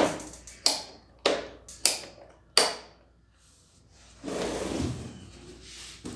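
Sharp clicks and knocks, about five in the first three seconds, from a pressure washer's parts being handled and fitted, then a scraping rustle lasting about a second.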